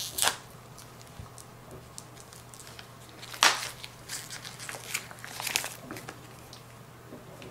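Clear plastic packaging crinkling and crackling in irregular bursts as it is slit with a knife and peeled off a 10 oz silver bar, with one sharp, louder crackle about three and a half seconds in.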